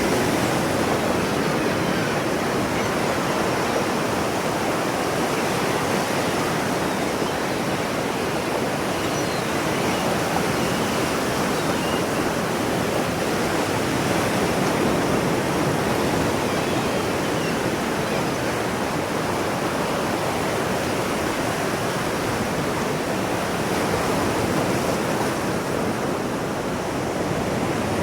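Ocean surf washing on the shore, a continuous rushing with only slight swells in loudness.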